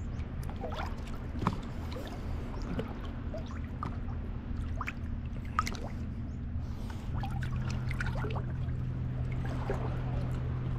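Water lapping and trickling close to the microphone at the waterline, with small splashes and drips. A steady low hum runs underneath and grows stronger about seven seconds in.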